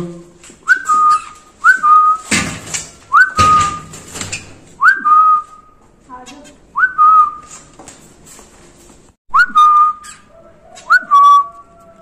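A person whistling the same short note over and over, about seven times, each a quick upward flick settling on a steady tone, with sharp clicks between the whistles, the loudest about two and three and a half seconds in.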